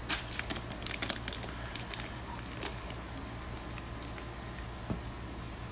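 Faint crinkles and clicks of plastic fish bags and packing being handled in a styrofoam shipping box, mostly in the first second and a half, over a steady low hum.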